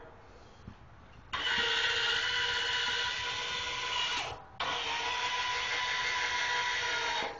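Electric linear actuator on a Cub Cadet lawn tractor's snow plow running with a steady motor whine as it moves the blade. It runs in two spells, starting about a second in and pausing briefly about four seconds in before starting again.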